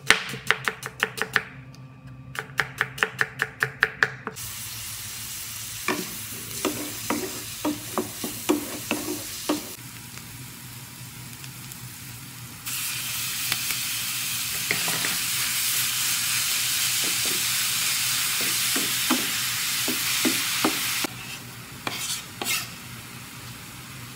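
Rapid, evenly spaced chopping knocks for about four seconds, then food frying in a pan while a spoon scrapes and knocks as it is stirred. The sizzle turns much louder from about halfway through for some eight seconds, then drops back.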